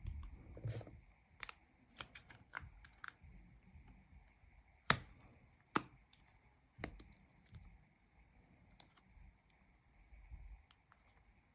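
Light, irregular clicks and taps from handling a new iPhone and its packaging, with two sharper clicks about five and six seconds in.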